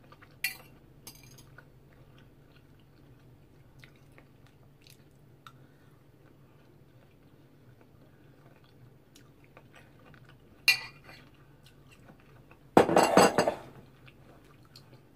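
Eating with cutlery: a few sharp clinks of a fork against a dish, with quiet chewing between them and a louder scraping burst near the end, over a faint steady room hum.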